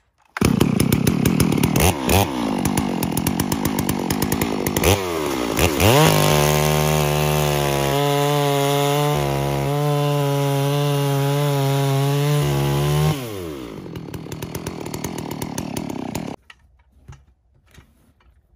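Gasoline chainsaw starting up and revving a few times, then held at full throttle for about seven seconds while crosscutting a log. Its pitch falls as it comes off the throttle, it idles briefly, and it stops about sixteen seconds in.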